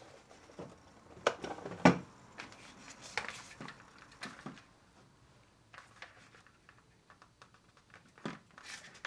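Light clicks and taps of hands handling a small foam RC plane and its tiny battery plug. The two sharpest clicks come within the first two seconds, about half a second apart, with fainter taps after them and a brief lull past the middle.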